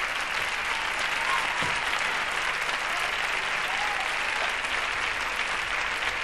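Studio audience applauding steadily at the end of a folk dance number.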